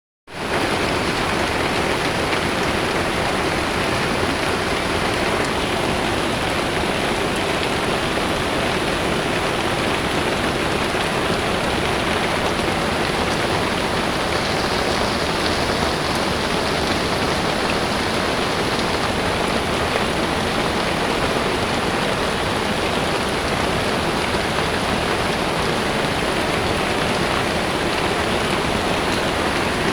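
Heavy rain pouring steadily, an even hiss that holds at the same strength throughout.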